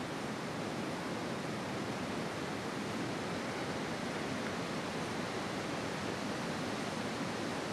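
Steady, even rushing of wind through the forest trees.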